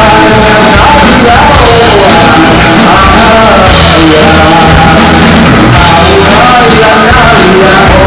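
Live male vocal sung over a strummed acoustic guitar, recorded very loud.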